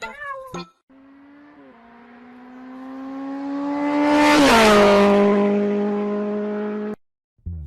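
A car passing by: a steady engine tone that grows louder, drops in pitch as it goes past about four and a half seconds in, then fades slightly and cuts off abruptly.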